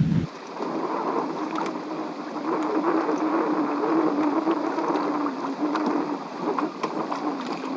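Wind and water noise on a small fishing boat, dulled and thinned by heavy wind-noise reduction, with a faint wavering hum through the middle and a few light clicks.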